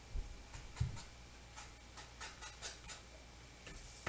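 Fingers pressing and rubbing paper letter stickers down onto a textured wooden board: two soft low thumps in the first second, then a run of short scratchy rubs, and a brief hiss near the end.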